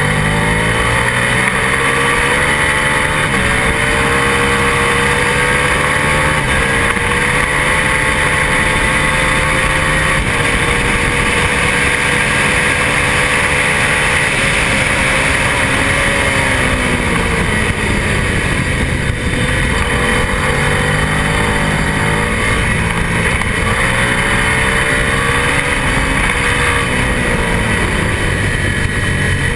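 Twin-cylinder race motorcycle engine run hard, heard from on board with heavy wind rush; its pitch climbs and drops several times as the bike accelerates and slows for corners.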